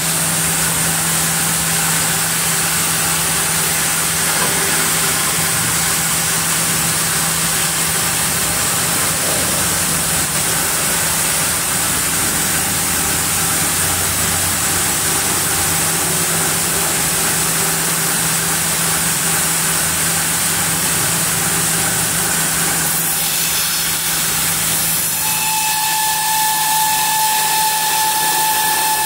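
Sawmill band-saw headrig and its log-carriage machinery running, a steady hum and hiss. A little before the end, a high, steady whine sets in.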